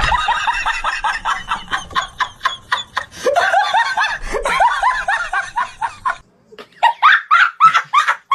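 A person laughing in quick repeated bursts, with a brief pause about six seconds in and louder bursts near the end.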